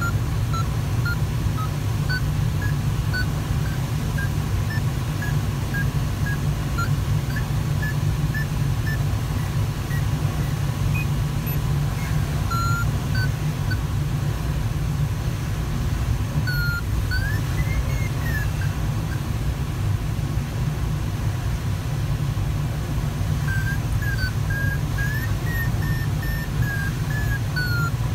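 Steady rush of airflow in a Sparrowhawk ultralight glider's cockpit, with an audio variometer's short beeps wandering up and down in pitch as the climb rate changes, and one tone swooping up and back down about two-thirds of the way through.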